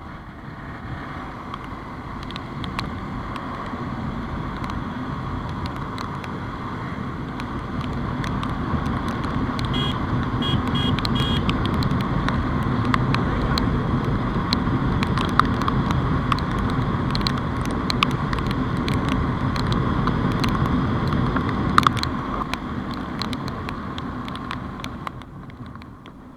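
Motorcycle on the move: engine and wind noise on the microphone, building over the first several seconds and fading near the end. Sharp ticks are scattered throughout, with four short high beeps a little after ten seconds in.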